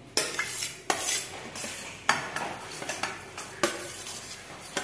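Steel spoon scraping roasted grated coconut masala off a steel plate into a steel mixer-grinder jar, with a few sharp metal clinks of spoon against plate and jar.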